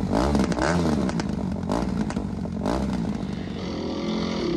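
Suzuki RM-Z250's four-stroke single-cylinder engine being revved in several short blips, the pitch rising and falling each time, then running more steadily near the end.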